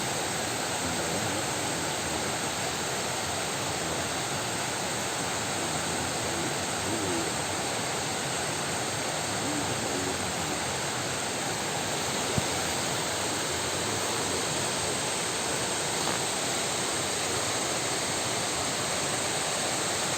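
Steady rushing noise, with a few faint short low calls now and then and a single click about twelve seconds in.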